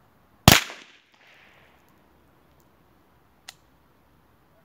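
Umarex T4E HDR 50 CO2 revolver firing once, a sharp crack with a short fading tail, followed about three seconds later by a faint click. Another shot begins right at the end.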